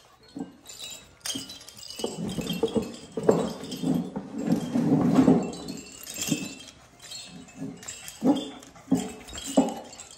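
Border collie puppies growling and scuffling as they play tug of war with a soft chew toy, the toy's bell tinkling lightly throughout. The growls come in bursts, heaviest in the middle and again near the end.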